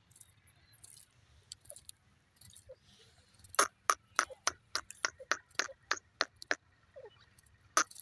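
Grey francolin calling: a loud run of sharp, evenly repeated notes, about three a second, starting about three and a half seconds in, breaking off briefly and starting up again near the end.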